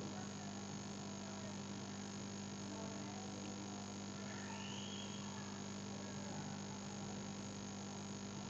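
Steady low electrical hum over faint hiss, with no other distinct sound.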